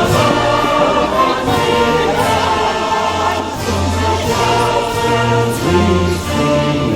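Music with a choir singing over sustained orchestral chords.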